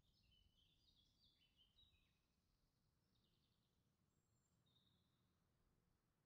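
Near silence: faint low background rumble with a few faint, high, chirp-like notes, mostly in the first two seconds. The hand mixer seen on screen is not heard.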